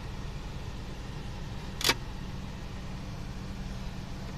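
A single sharp click about two seconds in as the plastic armrest with its metal bracket is handled, over a steady low hum.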